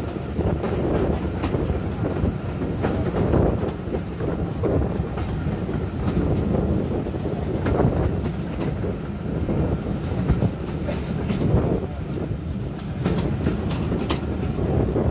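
Steam-hauled passenger coach running along the line, heard from an open carriage window: a steady rumble with many short clicks and clatters of the wheels on the track.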